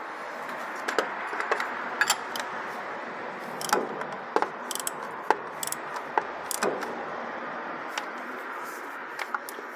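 Socket wrench working a drain plug under a vehicle: irregular sharp metallic clicks and clinks over a steady hiss.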